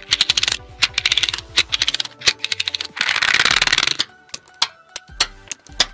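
Small magnetic steel balls clicking rapidly as rows of them snap together and are pushed into place, in quick runs of clicks. About three seconds in comes a dense rattle lasting about a second, then scattered single clicks.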